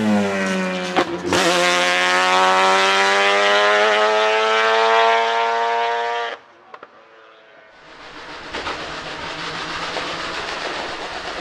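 Twin-turbo 13B two-rotor rotary engine of a Mazdaspeed March 84G Group C race car, loud at full throttle. After a brief break about a second in, its pitch climbs steadily for about five seconds, then the sound cuts off. After a quiet moment the car is heard again, getting louder as it approaches.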